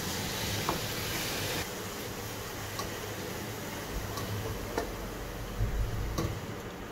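Silicone spatula scraping and stirring moist boondi in a non-stick frying pan, with several light ticks where it knocks the pan, over a steady hiss and low hum. The hiss drops a little about a second and a half in.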